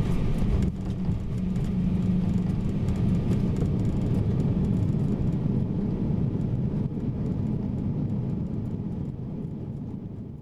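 Flight-deck noise of a Boeing 767-300ER rolling out on the runway after landing, its reverse thrust just stowed: a steady low rumble with scattered light clicks, fading out near the end.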